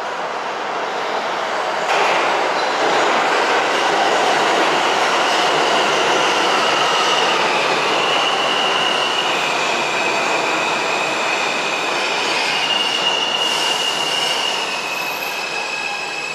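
New York City subway train running along the track at an underground station: a loud rumble and rattle that builds over the first two seconds, with wheels squealing in high steady tones through the middle and later part.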